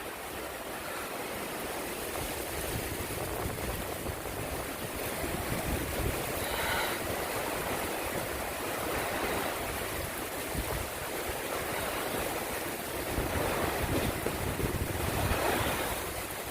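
Thunderstorm wind and rain making a steady, rushing noise, with gusts buffeting the microphone in an uneven low rumble.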